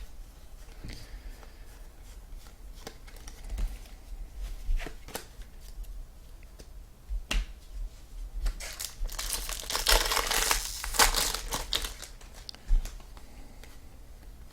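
A trading-card pack wrapper being torn open and crinkled. The loudest stretch is a dense burst of tearing and crinkling from about nine to eleven and a half seconds in, with scattered small clicks and rustles around it.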